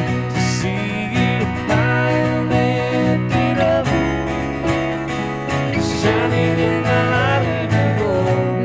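Live worship band music built on a strummed acoustic guitar, playing continuously.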